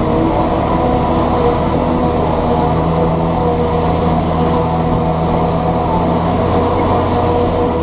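John Deere 7710's six-cylinder diesel engine running steadily, with small shifts in engine speed.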